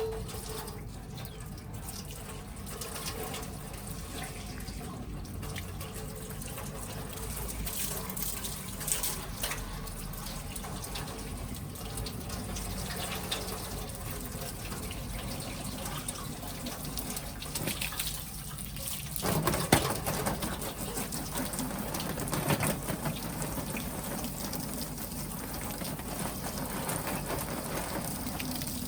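Water splashing and running down an LED display panel in a waterproofing splash test. It is a steady rushing of water that grows louder and heavier about two-thirds of the way through.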